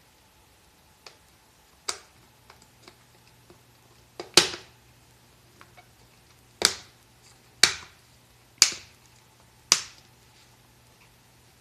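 A series of sharp clicks or knocks from hard objects. A few light ones come first, then five loud ones about a second apart, each with a short ringing tail. Under them a faint low steady hum starts about two seconds in.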